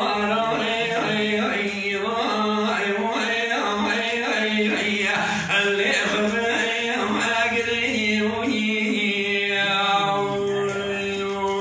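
A man singing unaccompanied in the Kurdish dengbêj style: one voice in chanted, ornamented phrases, ending in a long held note near the end.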